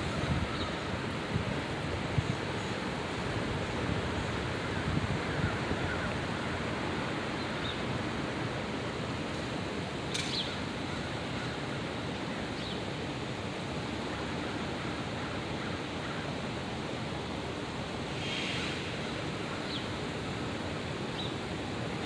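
Steady outdoor hiss of open-air background noise, with low rumbling buffets in the first few seconds and a few short, faint high chirps about halfway through and again near the end.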